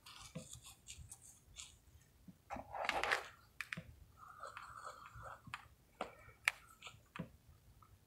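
Mothballs crunching and crackling as fingers squeeze and crumble them in a plastic tub, with scattered sharp clicks and a louder crunch about three seconds in.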